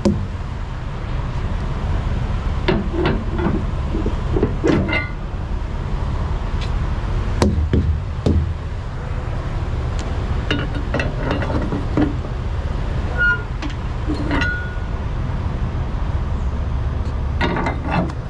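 Steady low vehicle rumble with scattered clicks and knocks, and a few brief high squeaks about two-thirds of the way through.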